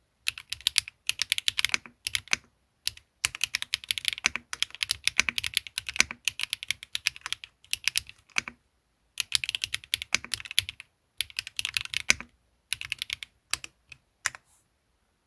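Typing on a KBD8X MKIII custom mechanical keyboard, gasket-mounted with an aluminium plate and no foam, fitted with Swagkey x HMX Garnet switches and Aifei ABS keycaps. Fast runs of keystrokes come in bursts with short pauses, thinning to a few last strokes near the end.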